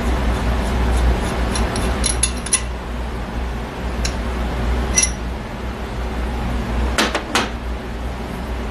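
Steel differential parts clinking and knocking as the ring-gear carrier and bearings are worked into a Ford 9-inch housing by hand. There is a quick run of small ringing clinks about two seconds in, single clinks near four and five seconds, and two heavier knocks about seven seconds in, over a steady low hum.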